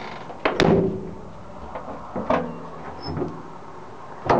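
Sliding side door of a 1977 Volkswagen Type 2 Westfalia camper being shut: a loud clunk about half a second in, a lighter knock a little after two seconds, and another loud knock at the end.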